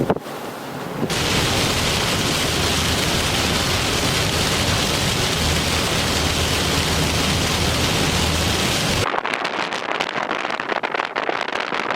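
Thunderstorm wind and heavy rain on the microphone, a dense steady roar with a deep rumble underneath. About nine seconds in it switches abruptly to a thinner, crackling patter of rain.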